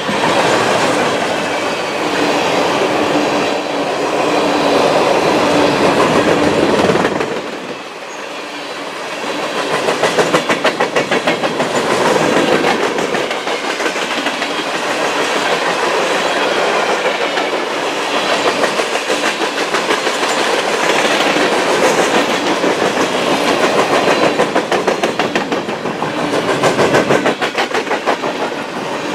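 Freight train of covered hopper cars rolling past close by: steel wheels clattering over the rail joints in a rapid clickety-clack over a steady rolling rumble, the loudness pulsing with each passing car.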